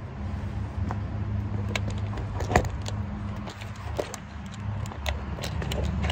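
Scattered metallic clinks and rattles of hoist and engine hardware as the engine is worked down into the engine bay, with one sharper clank about two and a half seconds in, over a steady low hum.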